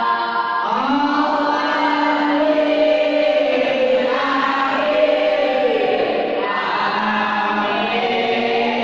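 Group of boys chanting marhaba, devotional praise of the Prophet Muhammad, together in unison. The voices hold long drawn-out notes and glide up into each new phrase.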